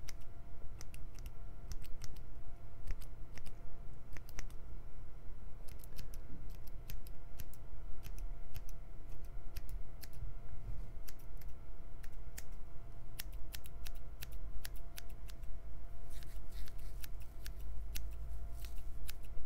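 Hairdressing scissors snipping again and again in quick, irregular runs of crisp clicks, as in cutting hair, over a faint steady hum.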